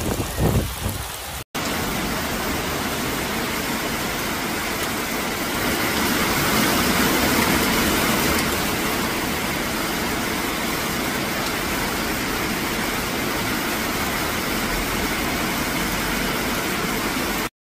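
Heavy rain pouring down in a steady hiss on trees and a flooded yard, swelling a little about six to eight seconds in and stopping abruptly near the end. In the first second and a half, floodwater rushes past with wind buffeting the microphone, then breaks off suddenly.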